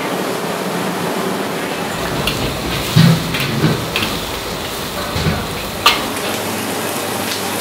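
Steady sizzling hiss of leafy greens stir-fried in a wok over a gas flame, with a few sharp clanks and knocks of the metal spatula and ladle against the wok, the loudest about three seconds in and again near six seconds.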